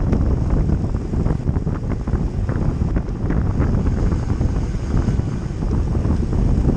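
Wind buffeting the microphone of a camera riding on a road bike at race speed, a loud, steady, fluttering rush, mixed with the rumble of tyres on asphalt.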